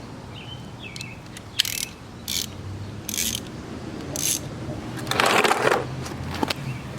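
Socket wrench ratchet clicking in several short bursts, then a longer, louder run about five seconds in.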